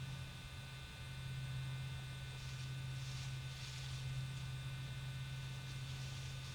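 Steady low electrical hum with a faint whine, and a few soft hissing swells now and then.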